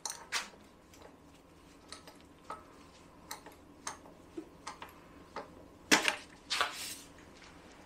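Irregular light metallic clicks and knocks from a steel handle working a small hydraulic bottle jack as it presses a cylinder head up off its engine block; the loudest knocks come about six seconds in.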